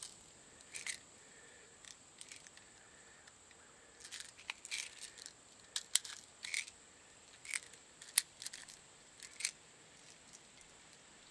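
Airsoft BBs being dropped by hand into the loading holes of a Zoxna mini launcher. Faint, irregular small clicks and ticks.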